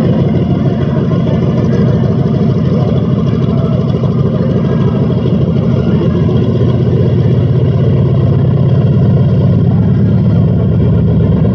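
A Douglas SBD Dauntless dive bomber's Wright Cyclone nine-cylinder radial engine running at taxi power: a loud, steady, pulsing engine note with the propeller turning. It grows slightly louder in the second half as the plane turns toward the listener.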